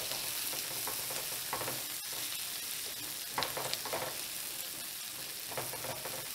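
Asparagus spears and chopped shallots sizzling steadily in butter and olive oil in a stainless steel skillet, with a spatula scraping the pan and turning the spears a few times.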